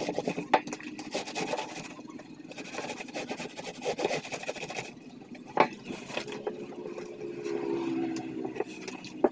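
Clothes being washed by hand: wet fabric scrubbed and rubbed in repeated uneven strokes, with a sharp knock about five and a half seconds in.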